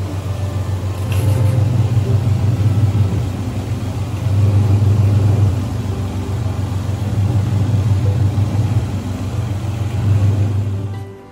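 Whirlpool twin-tub washing machine's wash tub running, its motor giving a loud, steady low hum over churning water and clothes. The hum swells and eases every few seconds and cuts off near the end.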